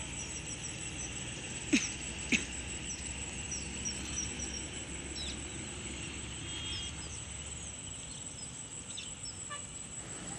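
Riverside ambience: small birds chirping in short, repeated calls over a steady low background and a thin, steady high whine, with two sharp clicks about two seconds in.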